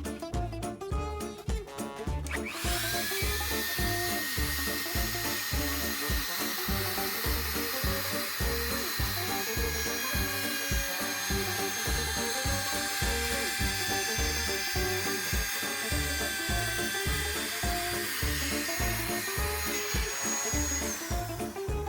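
A handheld power tool spins up about two seconds in, runs steadily with a whine while enlarging the door-knob hole in the wooden door, and stops near the end. Background music with a steady beat plays throughout.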